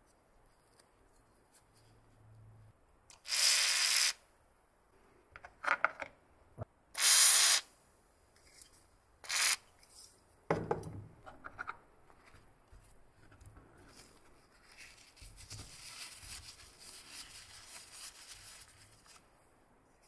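Liquid sprayed onto a rusty metal lighter in three short hissing bursts, the first about a second long and the later ones shorter, with small handling knocks between them. A fainter steady hiss follows near the end.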